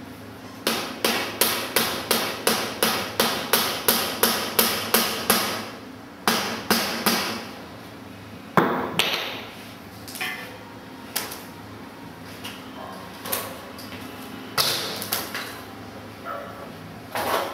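Soft-faced mallet tapping a grip onto the end of a bicycle handlebar, a fast even run of about three strikes a second for several seconds. Then a few more strikes, one louder knock, and scattered lighter clicks and knocks.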